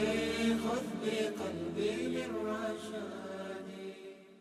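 A cappella vocal nasheed: voices holding a chant without words, slowly fading out as the song ends.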